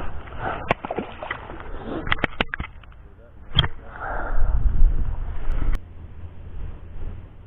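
Wind buffeting the microphone as a low rumble, strongest in the second half, with several sharp clicks and knocks: a quick cluster about two seconds in and a louder one near the middle.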